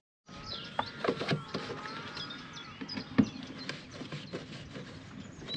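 Plastic drainpipe being handled and fitted up to a roof drain outlet: scattered clicks and knocks, the loudest about a second in and again about three seconds in, with birds chirping faintly in the background.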